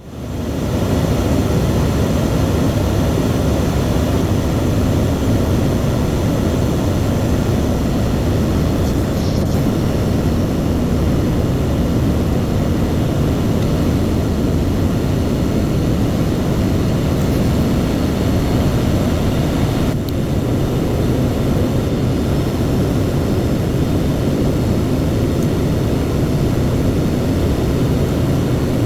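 ATR72 twin-turboprop airliner in flight, heard from the cockpit: a loud, steady rush of engine, propeller and airflow noise, heaviest in the low range. It fades in over the first second.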